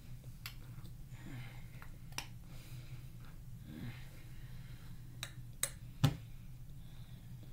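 Metal spoon clicking against a glass measuring cup of cornstarch several times, with a louder knock about six seconds in, over a steady low hum.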